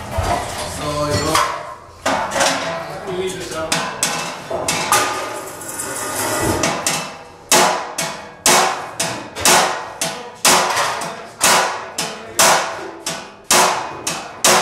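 Hammer blows on the steel panels of a Puxin biogas digester mold, each with a short metallic ring: irregular knocks and clanks at first, then about halfway through a steady run of blows about one a second.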